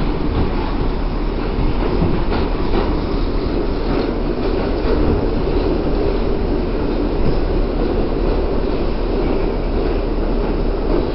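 R62A subway train running through a tunnel, heard from inside the car: a loud, steady rumble, with a run of faint clicks about two to five seconds in.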